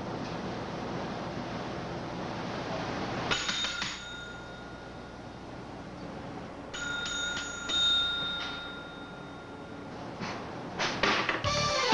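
Chrome service bell slapped by hand: a single ding about three seconds in, then a quick run of repeated dings about seven seconds in that rings on for a couple of seconds.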